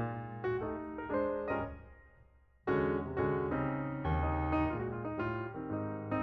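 Background piano music: a gentle solo piano line with struck notes that ring and fade. It thins out about two seconds in, then comes back fuller after a short lull.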